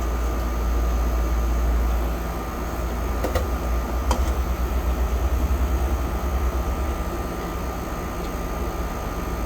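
Steady low hum with a thin, faint high tone over it, fluttering for a few seconds midway, and a couple of light clicks about three and four seconds in.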